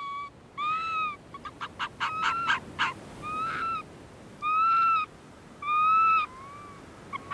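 Arctic fox calling: a handful of drawn-out, arching high yelps, with a rapid run of short, quick yelps in between and again near the end. It is the territorial call a male arctic fox gives to keep in contact with his mate and warn off rivals.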